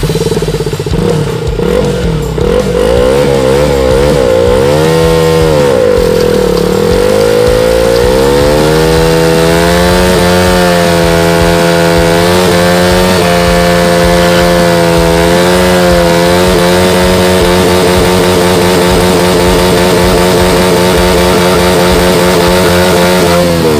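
KTM Duke 200's single-cylinder four-stroke engine revved up and down in quick blips, then from about eight seconds in held at high revs with a few brief dips while the rear tyre spins in a burnout.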